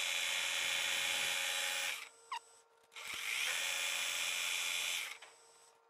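Metal lathe cutting a steel bushing: two spells of steady hissing scrape against the spinning workpiece, the first about two seconds long and the second, under a hand-held file, about two seconds, with a quiet gap between. This is the edge being given a shallow lead-in chamfer and dressed. A faint steady hum from the lathe runs underneath.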